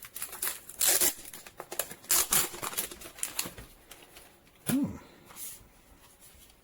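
Handling noises of unboxing: irregular rustling of packaging and light clicks and knocks as the docking station is lifted out and turned over, with a brief low tone about five seconds in.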